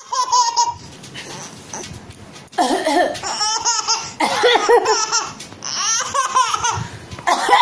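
Baby laughing in about five bouts of high-pitched, breathy laughter with short pauses between: a coughing kind of laughter.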